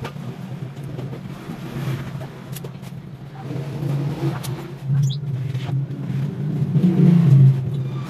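A motor engine running steadily, swelling louder toward the end, with a few light clicks of wooden cage parts being handled.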